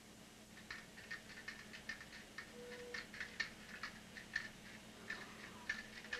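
Faint irregular clicking, a few clicks a second, over a low steady hum.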